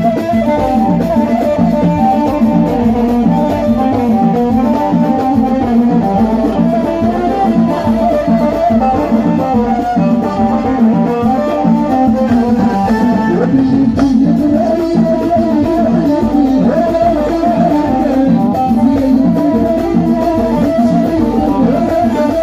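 A Moroccan orkestra band playing: plucked string instruments carry the melody over a steady drum beat, continuous throughout.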